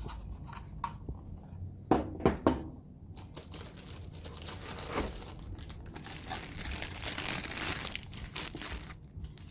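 Packaging being handled and pulled open, crinkling and rustling, with a few sharp knocks about two seconds in.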